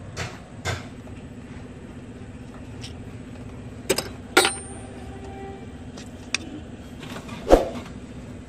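A handful of sharp metal clinks and knocks from hand work at the crankshaft seal housing of a Toyota 3L engine, one leaving a brief metallic ring and the loudest coming near the end. A steady low hum runs underneath.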